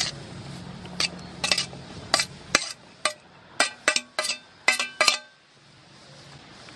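Metal tongs and stainless steel bowls clinking as sliced sea snail is scraped from one bowl into another: a quick series of sharp metallic clinks, each with a short ring, stopping a little after five seconds in.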